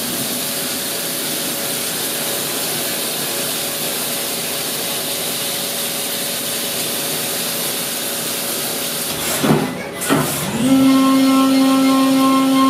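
Brother S700X1 CNC vertical machining center milling, with a steady hiss of coolant spray. About ten seconds in come two quick sweeping sounds, then a steady pitched hum starts and holds.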